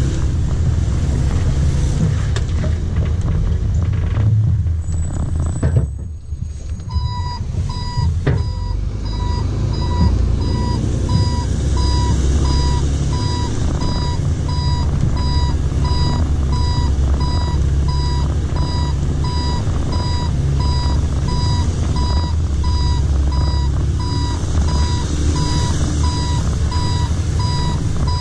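Rear-loader garbage truck's engine running with a steady low rumble; about seven seconds in, its reverse alarm starts, an evenly repeating high beep, as the truck backs up.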